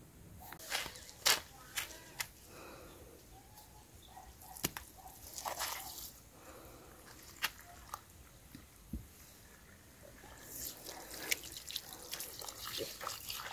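Water splashing and dripping as a hand works in a small pot of water, with a few sharp clicks and knocks, busier near the end.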